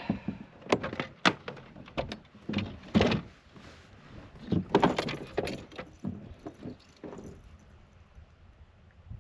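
Irregular knocks, clunks and rattling from gear and a fish being handled on a kayak while a just-caught bass is measured. The clatter dies down after about seven seconds.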